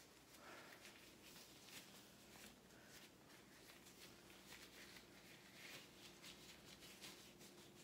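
Near silence: quiet room tone with a faint steady hum.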